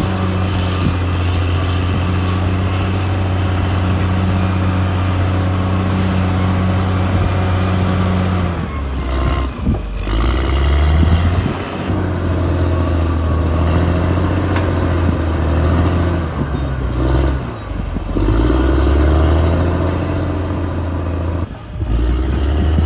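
CAT D6R bulldozer's diesel engine running under load, a steady low drone at first, then rising and falling in pitch with a few brief dips as the load changes.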